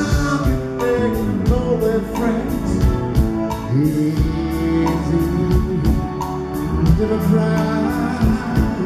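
Rock band playing live: a male lead vocal singing over electric guitars, bass, keyboards and drums, heard from the audience.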